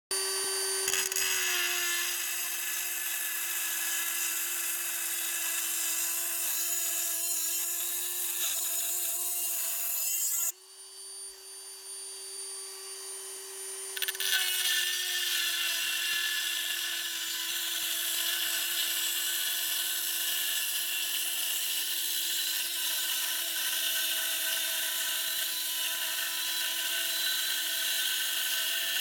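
A small high-speed handheld rotary tool with a thin cut-off disc cutting a steel section, a steady high motor whine under a harsh grinding hiss. From about ten to fourteen seconds in, the disc is off the metal: the hiss falls away and the whine rises a little as the motor runs free. Then it bites again and the pitch sinks under load.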